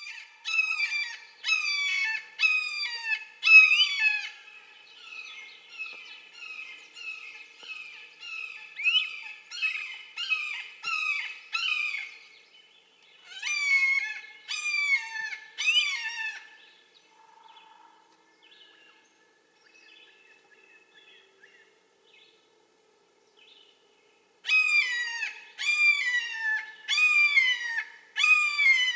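Red-shouldered hawk calling: a series of loud, down-slurred kee-aah screams, about one a second. The calls come in runs: loud at first, softer for several seconds, loud again, then a faint, sparse stretch before a final loud run of five.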